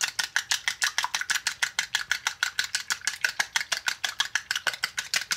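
Small metal whisk beating a raw egg in a small plastic bowl, clicking rapidly and evenly at about ten strokes a second.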